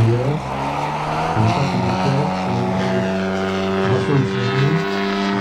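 The 125cc Hornet HE125 two-stroke gas engine of a large RC Carbon Cub model plane, turning a 29-inch propeller and running at a steady pitch in flight.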